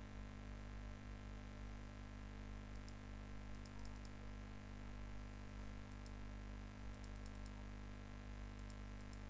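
Faint computer mouse clicks, single and in quick little runs, over a steady electrical hum and hiss from the recording setup.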